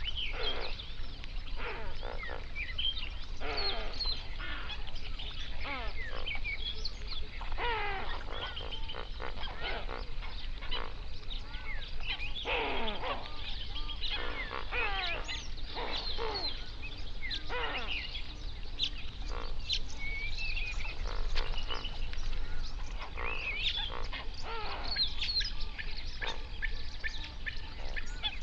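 A flock of flamingos calling, with many overlapping goose-like honks following one another without pause.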